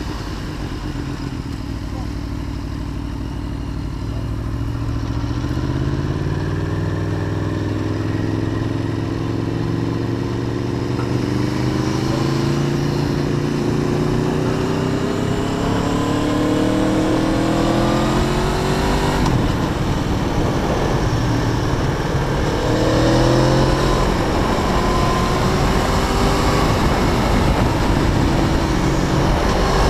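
Aprilia Tuono V4 APRC Factory's V4 engine accelerating through the gears: its pitch climbs, drops at each upshift, then climbs again, repeatedly.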